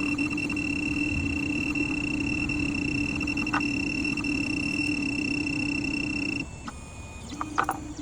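Automatic key-cutting machine running with a steady whine, then stopping about six and a half seconds in, followed by a few sharp clicks.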